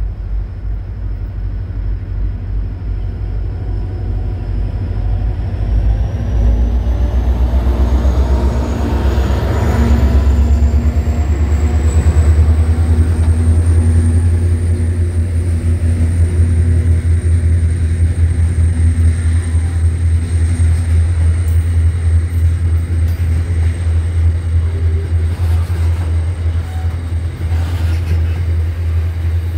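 Freight train passing at close range: a heavy low rumble builds over the first dozen seconds as the locomotives come by, then holds steady as the wagons roll past. A thin high whine rises in pitch during the approach.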